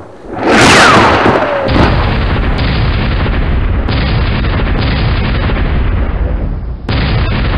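Added explosion sound effects: a loud rushing blast with a falling whistle about half a second in, then a dense rumbling explosion that keeps going and restarts with fresh blasts several times.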